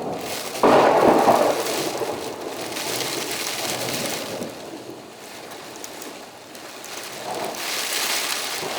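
Heavy thunderstorm: steady rain hiss, with a sudden loud burst of thunder a little under a second in that rumbles and fades over a couple of seconds, and another swell of rumble near the end.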